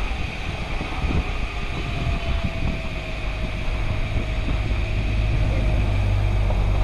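Wind rumbling on a bike-mounted GoPro's microphone while a mountain bike rides along the road at about 25 km/h, a steady low rumble with a faint thin hum in the middle.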